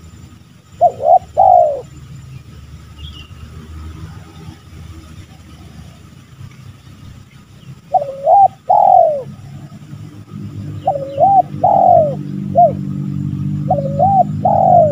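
Spotted dove cooing: a two-note coo about a second in, then after a pause, repeated coo phrases from about 8 seconds, coming quickly near the end. A low rumbling noise swells underneath in the second half.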